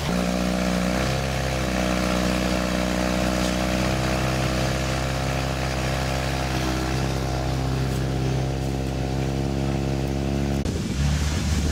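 Small engine of a portable fire pump running steadily, its pitch shifting slightly about a second in. It cuts off abruptly near the end.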